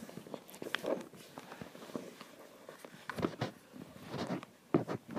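A puppy scrabbling and tugging at a rug: scattered scratches, scuffs and small knocks of paws on the mat and carpet, busier in the second half.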